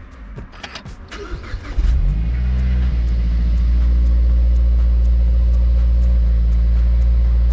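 Mazdaspeed 3's 2.3-litre turbocharged four-cylinder, heard from inside the cabin, starting about two seconds in after a few clicks, catching at once and settling into a steady, loud fast idle at around 2,000 rpm through its resonator-deleted exhaust. It is the cold first start after a service with fresh oil and new spark plugs.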